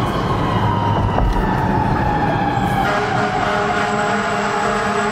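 Fire truck siren winding down, its pitch falling slowly throughout, over the truck's engine and road noise.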